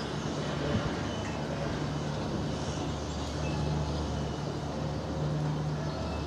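Small saddle-tank steam locomotives running slowly along harbourside rails, with a low, steady engine hum that comes and goes underneath.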